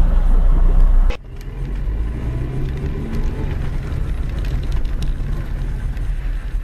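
Car engine and tyre noise heard from inside the cabin through a dashcam microphone, a steady low rumble. About a second in, a louder low hum cuts off abruptly and gives way to a quieter rumble.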